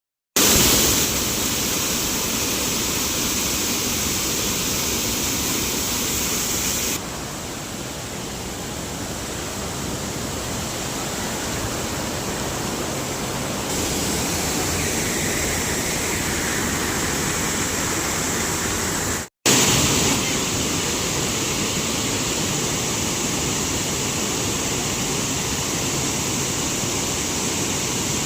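Waterfall, a steady, loud rush of falling water. The sound briefly cuts out about two-thirds of the way through, then resumes.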